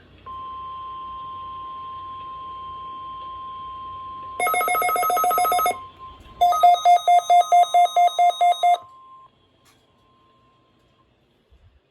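NOAA Weather Radio 1050 Hz warning alarm tone for the weekly test: a steady high tone that fades away in the second half. About four seconds in, a louder pulsing electronic alarm beeps over it in two bursts, the first very rapid, the second at about four to five beeps a second.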